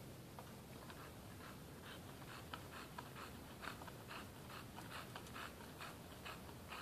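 A bulldog breathing hard, faint short puffs of panting about three times a second.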